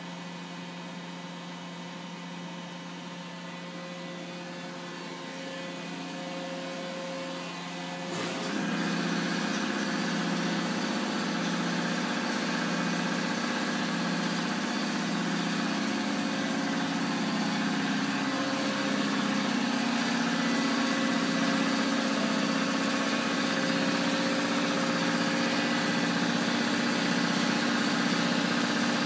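Hwacheon Hi-Tech 700 CNC lathe powered up and running, a steady machine hum with several steady tones. It grows suddenly louder about eight seconds in, with more hiss and a slight regular waver in the low hum.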